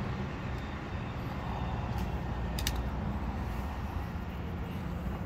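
Steady low rumble of distant road traffic, with two faint clicks about two seconds in.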